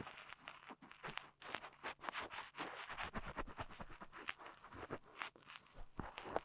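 Dry cotton swab scraping and rubbing in an ear, ear-cleaning style: a close, continuous run of soft scratchy rustles and small clicks.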